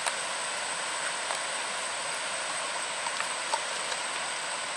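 Coffee being poured from a small aluminium pot into plastic cups, with a few light clicks of the pot against the cups, over a steady hiss.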